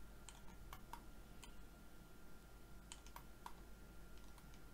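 Faint, scattered, irregular clicks of a computer mouse and keyboard being worked, over a quiet room.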